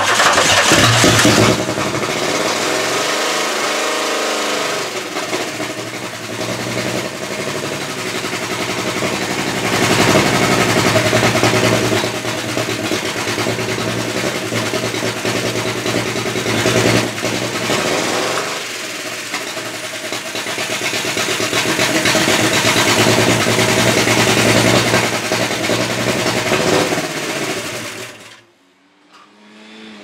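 1996 Pontiac Grand Prix V6 starting and running rough with a heavy misfire, revved twice but unable to climb past about 3,000 RPM, then switched off near the end. One cylinder is not firing and its spark plug is soaked, which the owner suspects is coolant from a head gasket leak.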